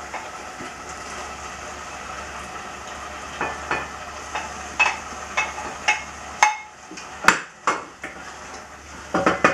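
Pan of cod stew sizzling softly while fried potato cubes are scraped off a plate into it with a wooden spatula: taps and scrapes of the spatula on the plate and pan from about three seconds in, a sharp clink of the plate being set down near seven seconds, then more stirring taps at the end.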